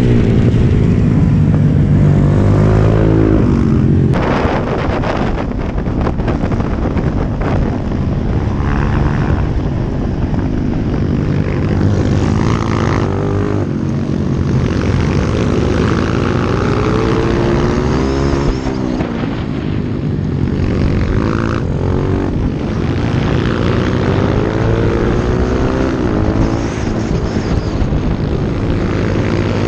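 Onboard sound of a small racing motorcycle's engine at full race pace: repeated rises and falls in pitch as it accelerates out of corners and backs off into them, with dips in level about four seconds in and again around two thirds through.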